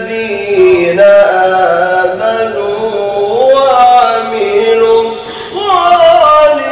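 A man's voice reciting the Quran in the slow, melodic Egyptian style, holding long ornamented notes that glide up and down in pitch.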